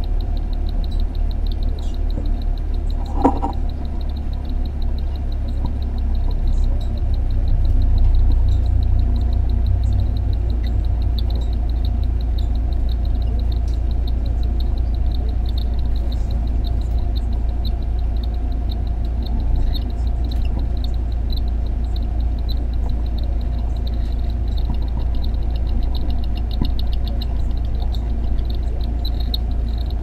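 Cockatiel chicks in the nest box giving rapid, ticking begging calls, over a steady low hum. One short squeak about three seconds in.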